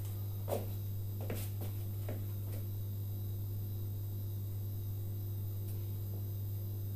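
A steady low electrical hum, with a few faint clicks and rustles in the first couple of seconds as the battery wires are handled.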